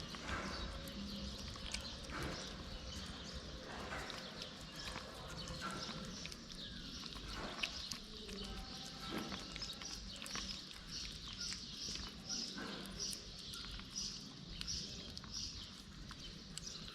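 Outdoor animal sounds: irregular short clicks and crunches, with a high chirp repeating about twice a second through the second half.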